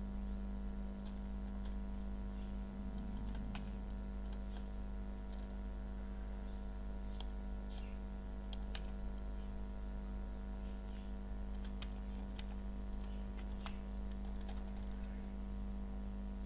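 Steady electrical mains hum with many overtones, with scattered computer keyboard and mouse clicks now and then.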